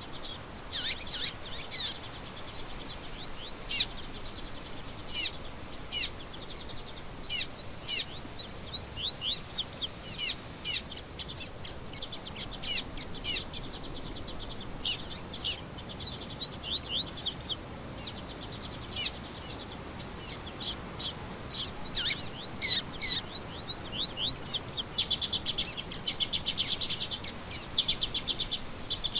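Songbirds singing: many quick, sharp chirps that sweep steeply downward in pitch, coming in loose runs, with a fast buzzy trill in the last few seconds.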